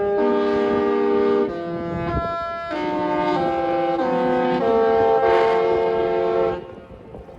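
Disney Treasure's musical ship horn playing a tune as a series of held multi-note chords that change every half second to a second, then cutting off about six and a half seconds in.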